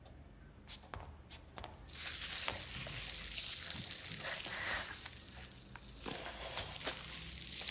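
Plastic wrapping on a floor lamp crinkling and rustling as the lamp is grabbed and lifted, starting about two seconds in. Before it, a few soft steps.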